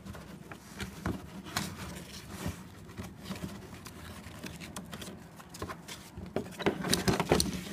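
Nylon harness webbing and plastic buckles being handled and pulled through the slots of a molded plastic swing seat: irregular rustling, scraping and light clicks, busier and louder near the end.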